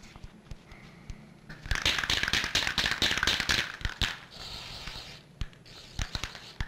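Aerosol spray-paint can spraying through a stencil: one long hissing burst of about two and a half seconds, starting a little over a second in, then a shorter, fainter spray. A few sharp knocks follow near the end.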